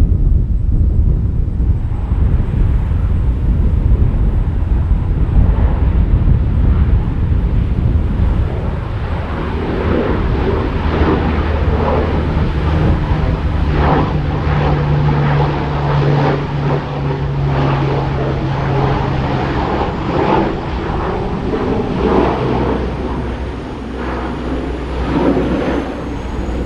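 Large military aircraft engines running loudly with a continuous low rumble, a steady low hum through the middle and a faint high whine rising near the end.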